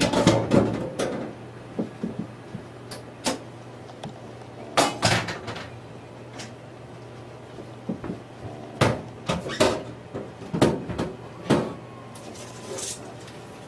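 Handling noise: irregular knocks, clicks and rustles, a dozen or so short sounds with pauses between them, the busiest near the start, around five seconds in and from about nine to eleven and a half seconds in. A faint steady low hum sits under them.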